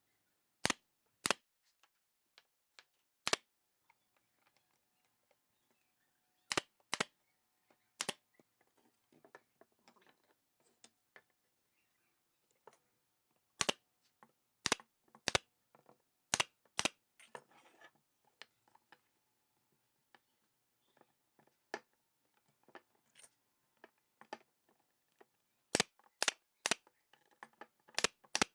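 Sharp, loud clicks or taps at irregular intervals, singly and in quick pairs or clusters of three or four, with faint scraping and rustling between them, typical of hand work on small wooden pieces.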